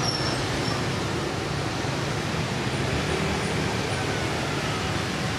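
CC 201 diesel-electric locomotive approaching at low speed, its diesel engine running with a steady low drone.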